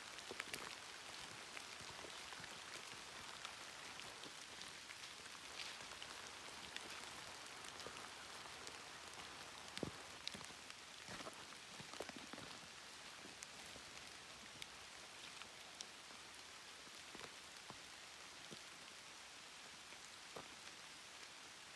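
Steady rain falling, a soft even hiss with many separate drops ticking close by.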